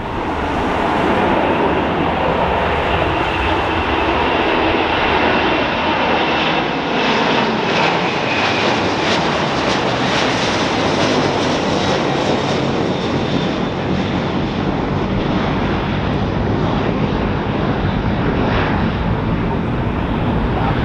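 Twin-engine Airbus A330 jet airliner at takeoff thrust, lifting off and climbing away: a steady, loud engine roar with a thin high whine on top.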